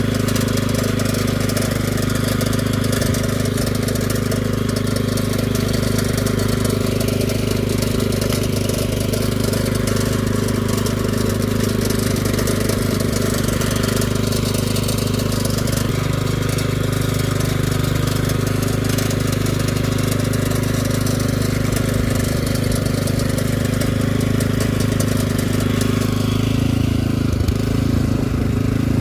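Walk-behind cultivator's small engine running steadily under load, its note shifting slightly near the end.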